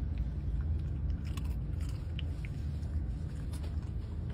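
A small dog crunching and chewing a dry beef liver treat, a few short crisp crunches spread through, over the steady low rumble of the bus.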